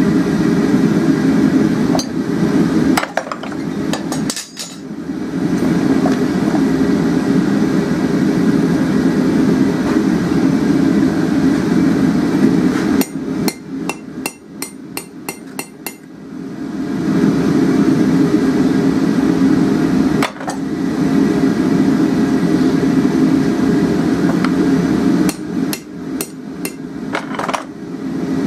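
Three runs of hammer blows on hot steel at the anvil, ringing out at about three to four strikes a second. The middle run, about halfway through, has the most blows. Between the runs a forge runs with a steady low roar, which drops away while the hammering sounds.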